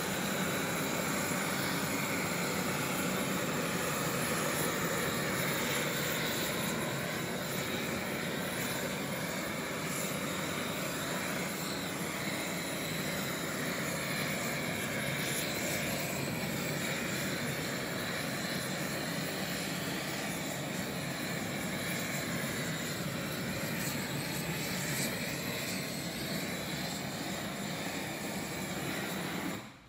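Gas torch flame burning steadily with a continuous rushing hiss as it browns the top of a tray of firm tofu.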